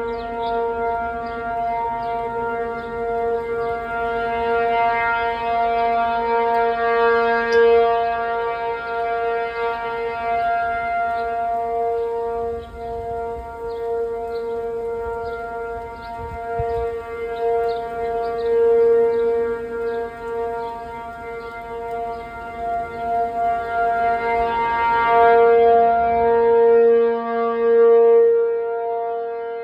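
P-50 outdoor warning siren sounding its steady alert tone, the signal used for a tornado warning. The pitch holds steady while the loudness swells and fades slowly several times.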